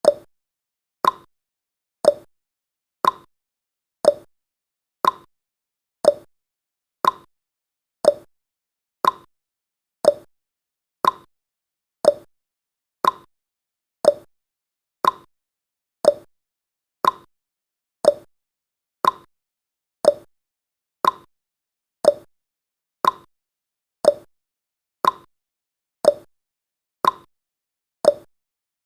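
Clock-style tick-tock sound effect from a countdown timer: one short tick every second, alternating between a lower and a higher pitch.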